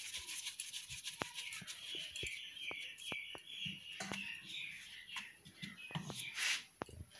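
Hands working a ball of chapati dough in dry flour in a steel bowl: soft handling sounds with scattered light clicks and taps. A faint high wavering sound runs underneath for the first few seconds.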